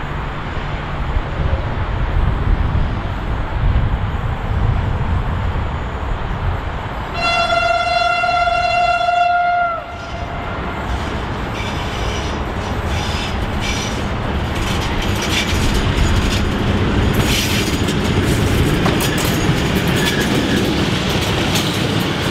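PKP SU42 diesel locomotive sounds one long single-note horn blast of about two and a half seconds. Its engine rumble then grows as it approaches, and the carriages roll by with rapid clicking of wheels over the rail joints.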